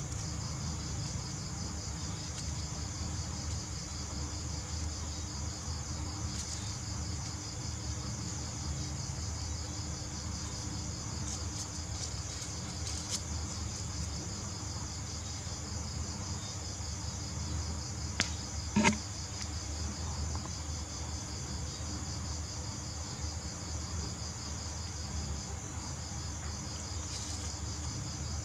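Insects chirping steadily in a high, pulsing trill over a low hum. About 19 seconds in comes one brief, louder sound that rises in pitch.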